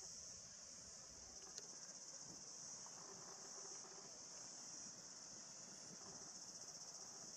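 Faint, steady, high-pitched insect chorus, with a single faint click about a second and a half in.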